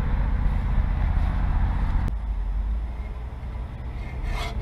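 Steady low rumble with a hum in it, like a distant engine, easing off somewhat about two seconds in. Near the end, strokes of a bow saw cutting through a log begin.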